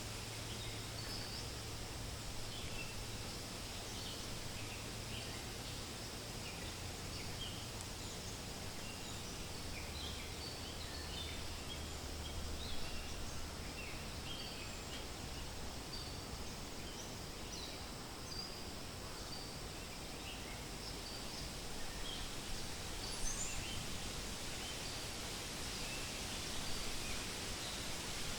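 Forest ambience: wind rustling through leaves as a steady hiss, with many short, high bird chirps scattered through it. A faint low drone is there in the first half.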